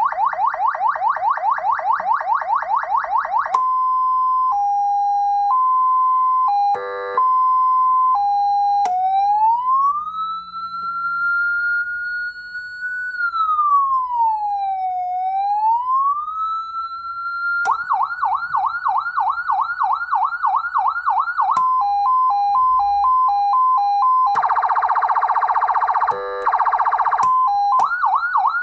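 CJB-200 200-watt electronic police siren unit cycling through its signal tones. It goes from a fast yelp to an alternating two-tone hi-lo, then a short buzzy 'quack' horn burst and a slow wail rising and falling once. After that comes the fast yelp again, the hi-lo, and a loud buzzy horn blast of about two seconds, with the yelp returning near the end.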